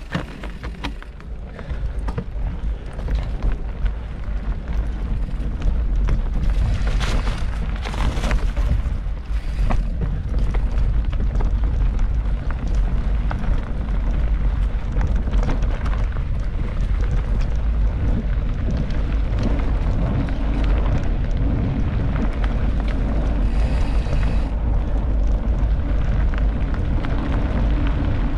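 Wind rumbling on the camera's microphone while a mountain bike is ridden over a rough trail, with the rattle and tyre noise of the bike throughout; it gets louder a few seconds in.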